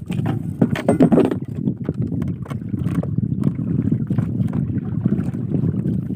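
Steady low rumble of a small fishing boat under way on the lake, with wind buffeting the microphone and scattered light knocks.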